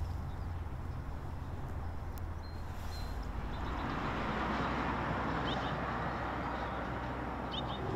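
A car driving by on the street: a low engine hum, then tyre and road noise that swells from about halfway through.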